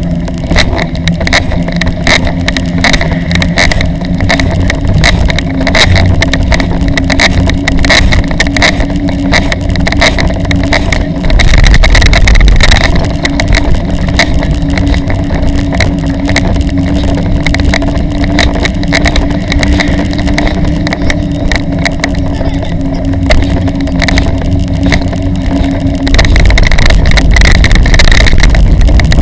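Ride noise of a child bike trailer being towed along a street: a loud, steady rumble of wheels on the road, rattling from the trailer and camera mount, and wind on the microphone, with a steady hum underneath. It gets louder and rougher near the end as the wheels run onto brick paving.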